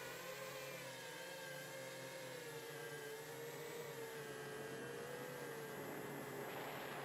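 Motors and propellers of a 7-inch FPV quadcopter whining steadily in flight, heard through the onboard camera's microphone, the pitch drifting gently up and down with throttle. Hiss rises near the end.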